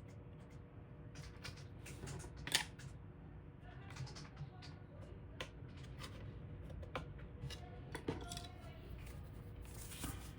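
Scattered small clicks and light taps of small computer parts being handled, the sharpest click about two and a half seconds in, over a steady low hum.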